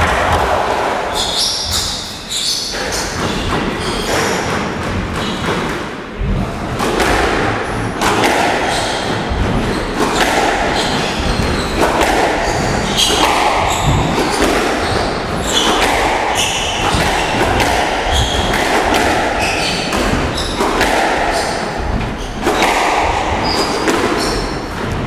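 Squash rally in an enclosed court: a quick, irregular series of sharp hits, the ball struck by rackets and smacking off the walls, with echo after each, and short high shoe squeaks on the court floor.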